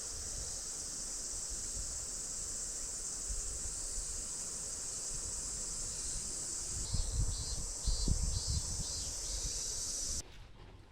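Insects buzzing in a steady high drone, with a second, pulsing insect call joining about seven seconds in, over a low uneven rumble. The drone cuts off suddenly near the end.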